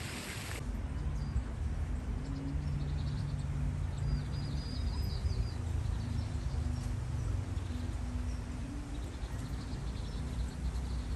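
Outdoor park ambience: small birds chirping in runs of quick, high notes over a low, steady background rumble.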